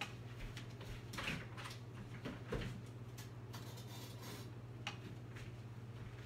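Faint scattered knocks and clatters of someone rummaging for kitchen items some way off, over a steady low hum.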